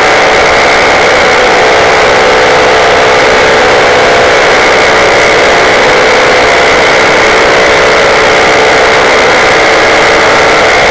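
Paramotor engine and propeller running steadily at cruise power in flight, loud and unchanging.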